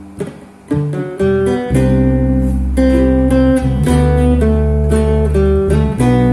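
Acoustic guitar playing: a few quiet plucked notes, then fuller, louder playing with ringing chords and a low bass from about a second in.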